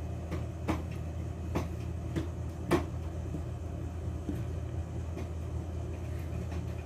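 A metal fork stirring batter in a glass bowl, clinking against the glass about five times in the first three seconds, the last clink the loudest. A steady low hum runs underneath.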